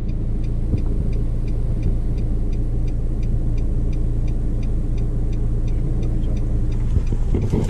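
Car engine and tyre noise heard from inside the cabin while driving: a steady low rumble, with a faint regular ticking about three to four times a second.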